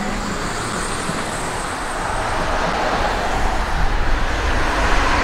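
City street traffic: cars passing on wet pavement, a steady tyre hiss and engine rumble that swells about two seconds in as a car goes by.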